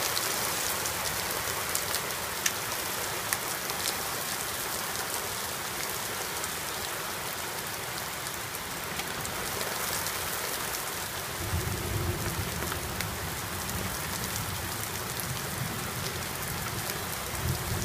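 Heavy rain pouring down in a severe thunderstorm, with scattered sharp ticks of small hailstones striking, most of them in the first few seconds. A low rumble comes in about two-thirds of the way through.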